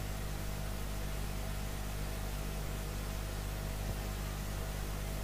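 Steady electrical hum and hiss from a live sound system, with a faint thin whine above the hum.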